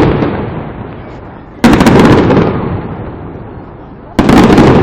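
Fireworks salute volleys: a cluster of shells bursting in quick sharp cracks about one and a half seconds in, and another near the end. Each volley fades away in a long rumbling echo, and the opening moments hold the dying tail of the volley before.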